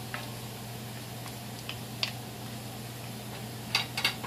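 Thick-cut bacon frying in an enameled Dutch oven over medium-high heat: a steady sizzle with scattered sharp pops and ticks, a quick cluster of them near the end.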